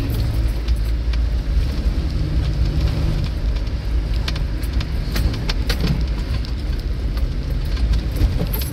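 Range Rover Classic driving off road, heard from inside the cabin: a steady low engine and drivetrain rumble. Muddy water splashes against the body as a puddle is crossed at the start, and frequent knocks and rattles come from the body and suspension over the ruts.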